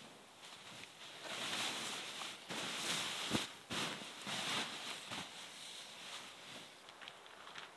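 Bedding rustling as it is shifted and spread out on the tent floor: fabric and a reindeer skin brushing and sliding in a series of swells, with one sharp tap a little past three seconds.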